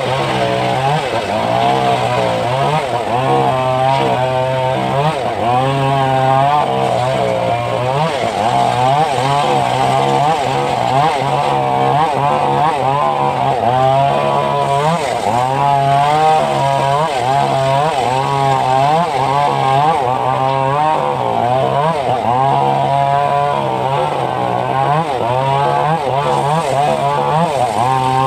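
Homemade engine-driven circular sawmill running and ripping a log, its pitch repeatedly sagging and recovering as the blade takes the load of the cut.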